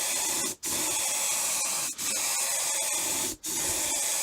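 Paint spray gun spraying two-part enamel onto a steel radiator: a steady hiss that breaks off briefly three times between passes.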